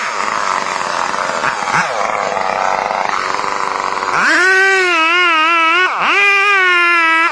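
Chainsaw engine running hard: a rough, noisy stretch for about four seconds, then a high, steady whine that drops sharply and picks up again about six seconds in.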